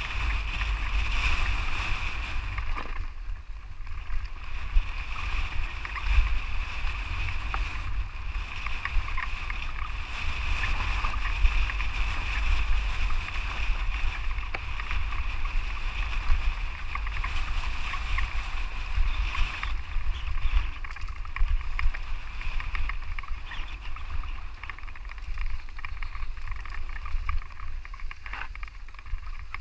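Steady wind rumble on the microphone and tyres running over a rocky dirt singletrack as a bike descends, with frequent short jolts and rattles from bumps.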